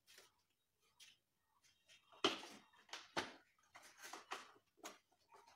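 RFL plastic clothes rack being assembled: its plastic panels and baskets clicking and knocking as they are handled and pressed together. A short series of sharp clicks, sparse at first, then a busier run from about two seconds in.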